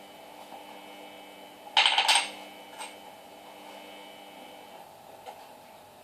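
Samsung Eco Bubble washing machine on its final spin, running with a steady hum and whine made of several constant tones; the higher whine stops near five seconds in. About two seconds in there is one brief, loud clatter.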